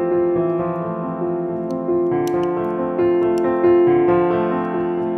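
Background music: a piano-like keyboard playing held notes and chords, with a new chord about every second.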